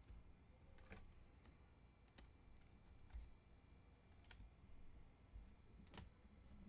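Near silence with a few faint clicks as trading cards are handled and flipped through.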